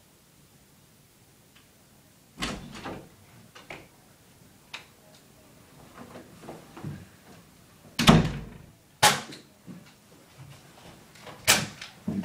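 A series of sharp knocks and bangs, like doors or objects being handled: one about two and a half seconds in, a louder clattering bang about eight seconds in, then single sharp hits about a second later and again near the end.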